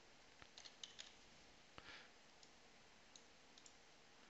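Faint, scattered clicks of a computer mouse and keyboard, a dozen or so light taps spread irregularly over near-silent room tone.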